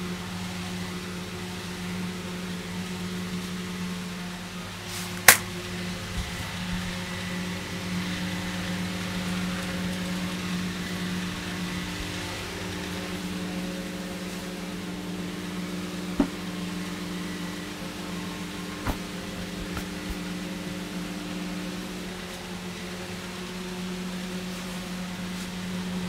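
Electric fan running with a steady hum, broken by one sharp click about five seconds in and two fainter clicks later.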